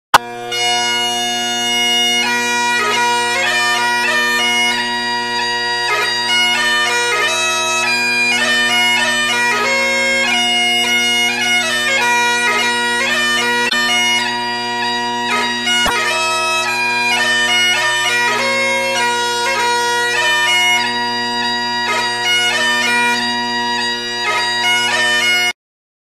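Bagpipes playing a ringtone tune: steady low drones sound unbroken beneath the chanter's melody. The music cuts off suddenly near the end.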